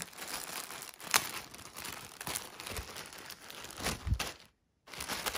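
Clear plastic bag crinkling and rustling as it is handled, with a sharp crackle about a second in; the sound drops out for about half a second near the end.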